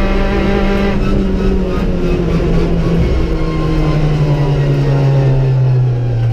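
Opel Corsa B rally car's Z14XEP 1.4-litre four-cylinder petrol engine, heard from inside the cabin. It holds high revs, then comes off the throttle about a second in, and the revs fall steadily.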